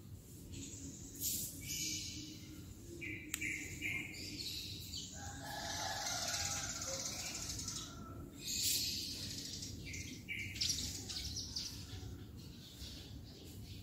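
White-rumped shama singing a rapid, varied run of whistled phrases and sharp chips, over a steady low rush of stream water.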